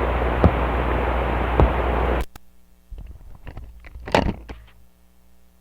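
Glitch noise music: a dense, hissing noise texture with a low hum cuts off abruptly about two seconds in, followed by scattered glitchy clicks and crackles that fade out.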